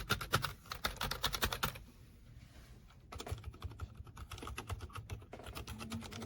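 Fast typing on a GK Gamakay TK75 V2 75% silent mechanical keyboard: a dense run of keystrokes, a pause of about a second around two seconds in, then steady typing again.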